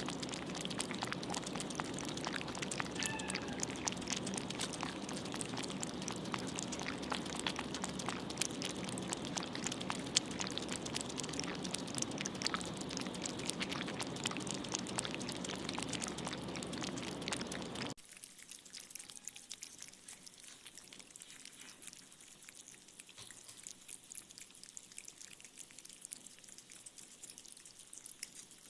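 Cats crunching and chewing freeze-dried poultry treats, a dense run of irregular crisp crackles and clicks. About two-thirds through the sound cuts abruptly to quieter, sparser chewing.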